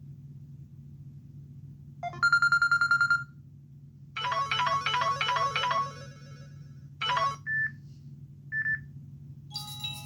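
Samsung Galaxy Young 2 ringtones played in short snatches through the phone's speaker, one after another: a fast pulsing electronic trill, then a quick repeated melodic figure, a short burst and two single beeps, and near the end a marimba-like tune begins. A low steady hum lies underneath.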